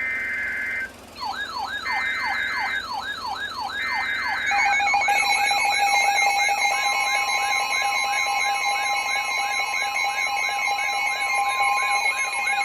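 Emergency Alert System alert tones. Three short bursts of SAME header data tones sound about a second apart, overlapped by a siren sweeping up and down about twice a second. Steady alert tones then join and build into a layered alarm.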